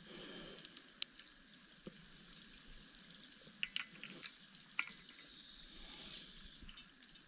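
Underwater ambience on a rebreather wreck dive, heard through a camera housing. Scattered sharp clicks and crackles sit over a steady high-pitched hum, with a faint low rumble.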